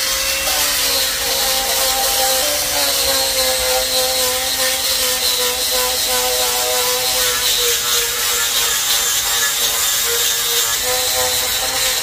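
Corded angle grinder with an 80-grit flap-disc sander running and sanding painted carved wood: a steady motor whine over the hiss of the abrasive scuffing the surface.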